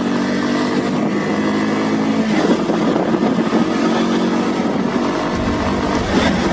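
Bajaj Pulsar 150's single-cylinder engine running at a steady cruising speed of around 60 km/h, picked up by a helmet-mounted phone. The engine note breaks off briefly about two seconds in, and a deeper rumble joins it near the end.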